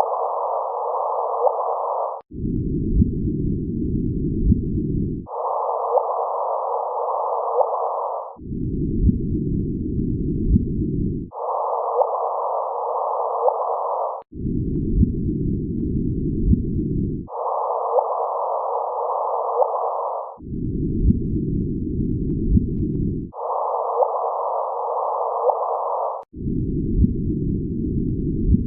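LIGO's audio conversion of the gravitational-wave chirp from two merging black holes: hissy stretches about three seconds long, each with one brief chirp. The stretches alternate between a low rumble at the waves' true frequencies and a higher version shifted into easier hearing range.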